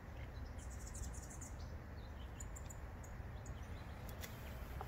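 Faint outdoor background: a steady low rumble with a few brief, high-pitched bird chirps scattered through.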